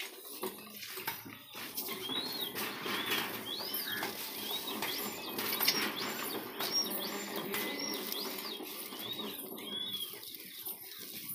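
Eicher diesel engine being turned over by hand crank, a squeak rising and falling in pitch repeating about twice a second with each turn, from about two seconds in until near the end.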